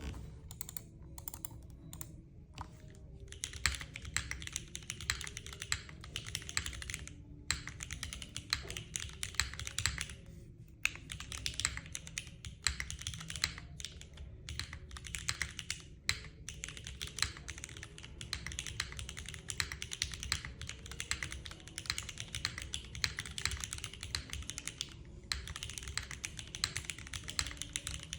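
Typing on a Neo60 Core 60% custom mechanical keyboard: rapid, continuous keystroke clacks with a few brief pauses, the spacebar going "póc".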